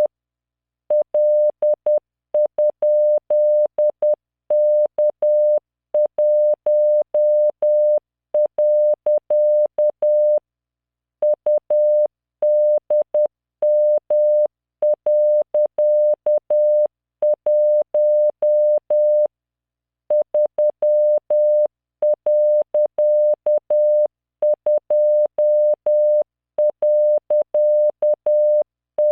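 Computer-generated Morse code practice tone at 600 Hz, keyed at 10 words per minute into random five-character code groups of dots and dashes. Each group is followed by a short pause, with two longer pauses, about ten and nineteen seconds in.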